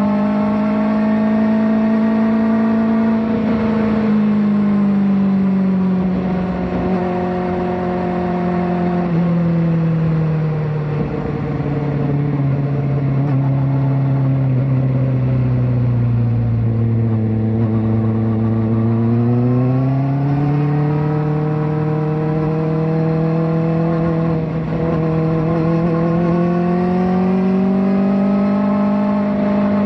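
Kawasaki ZX-4RR 399 cc inline-four engine running under way through a slip-on exhaust. Its note falls gradually over several seconds, holds lower for a stretch in the middle, then climbs steadily back up as the rider gets on the throttle again.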